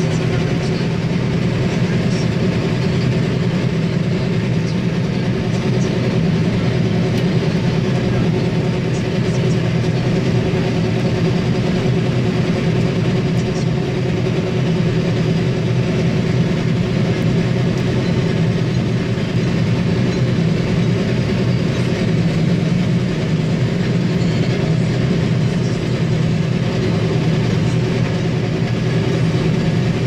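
Combine harvester running steadily under working load, heard from inside the cab: a continuous engine and threshing drone with a steady low hum, while it harvests wheat and unloads grain through its auger.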